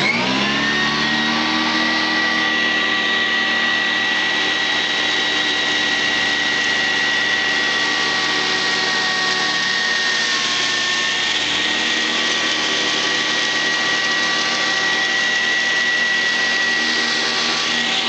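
Sanitaire SC886 commercial upright vacuum switched on, its motor winding up within the first second, then running steadily with a high whine as it is pushed over carpet to pick up spilled cat litter.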